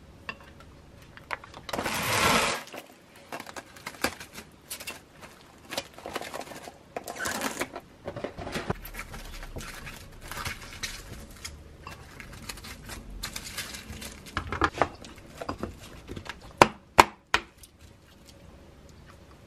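Handling sounds: coconut sugar scraped and scattered from a wooden spoon onto lemon slices in a glass bowl, then plastic cling wrap rustling and crinkling as it is stretched over the bowl. Near the end, a few sharp clicks as the container's locking lid is snapped shut.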